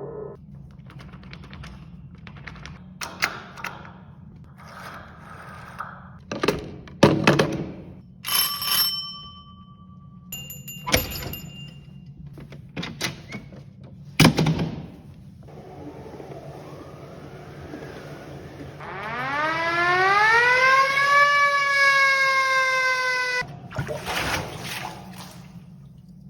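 A run of live foley sound effects made with stage props: a series of knocks, clunks and clatters, two short bell-like rings a little past the middle, and near the end a siren-like wail that rises steeply and then sinks slowly before cutting off.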